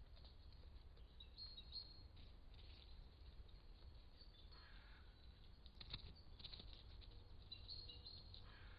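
Faint outdoor ambience through a trail camera's microphone: scattered short, high bird chirps over a low steady rumble, with a single click about six seconds in.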